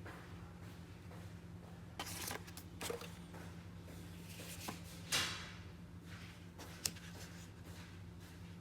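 Packaging being handled while a boxed gaming mouse is unboxed: a few short rustles and scrapes, the loudest one about five seconds in, and a single sharp click near the end, over a steady low hum.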